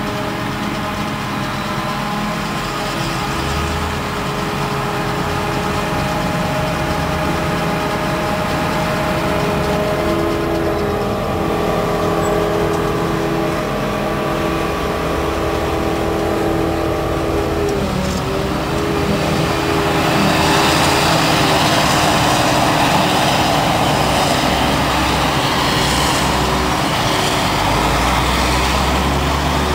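Claas Jaguar forage harvester at work chopping grass, its engine and chopping and blowing gear running with a steady whine, with an articulated truck's engine running alongside. About two-thirds of the way through, the sound turns louder and rougher, with a rushing noise over the machine hum.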